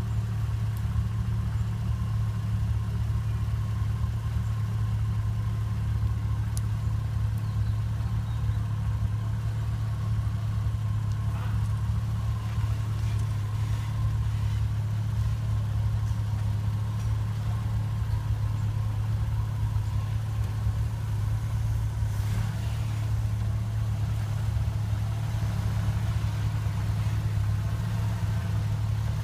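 Jeep CJ's engine running steadily at low revs as the off-roader creeps through deep mud, a constant low drone with no revving.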